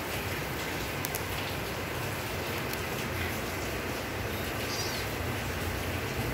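Steady hiss, with one faint, short, high-pitched kitten mew about five seconds in.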